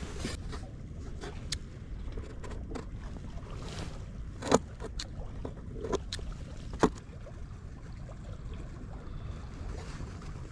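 A few sharp clicks and taps as small scissors and bait are handled on a polystyrene box, the loudest about four and a half and seven seconds in. Under them is a steady low rumble of wind and sea.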